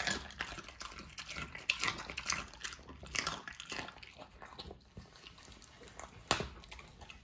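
Pit bull chewing raw chicken heads: wet smacking and crunching of bone and gristle as irregular crackling clicks, with one sharper click about six seconds in.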